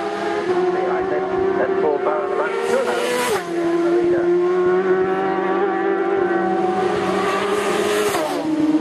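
Road-racing sport motorcycles at high revs as they speed past. Three times the engine note drops sharply as a bike goes by, the last near the end as two bikes pass close.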